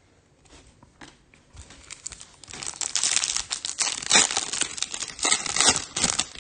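Foil wrapper of a Topps Chrome baseball card pack crinkling as it is torn open. The crinkling is faint at first and gets much louder from about two and a half seconds in, in a dense run of rustles.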